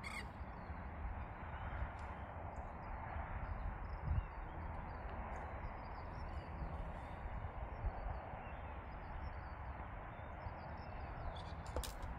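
Steady outdoor background noise, a low rumble with a hiss, with faint distant birdsong chirping throughout and a few small clicks.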